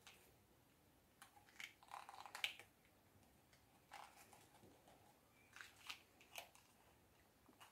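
Near silence: room tone with a few faint, short clicks and rustles, the loudest about two and a half seconds in.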